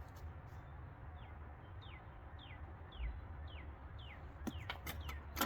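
A bird calling faintly and over and over, each note a quick downward slur, about two a second. Near the end a few sharp clicks and taps sound over it.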